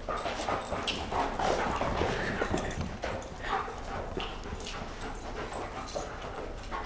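Several dogs playing rough together: irregular scuffling and clicking with short dog noises mixed in.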